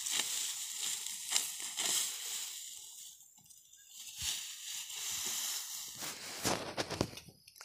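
Dry finger millet (nachni) stalks rustling and crackling as they are cut and gathered by hand, with scattered sharp snaps and a quieter spell about three seconds in.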